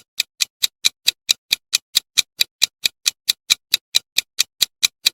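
Countdown-timer ticking sound effect: a steady run of sharp clock ticks, about four and a half a second, counting down the answer time.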